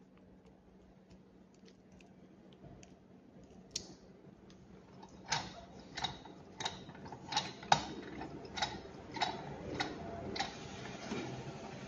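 Parts of a Storz Telecam endoscopy camera head and its cable clicking as they are handled and fitted together. Faint ticks come first, then about nine sharp clicks roughly every half second to second, starting about five seconds in and stopping about ten and a half seconds in.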